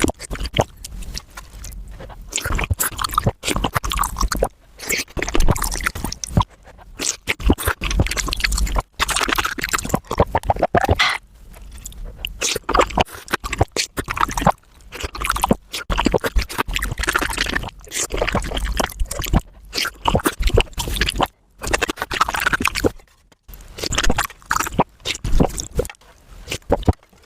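Close-miked eating sounds of spicy Korean soft tofu soup played back sped up: a rapid, irregular run of chewing, wet slurps and utensil scrapes.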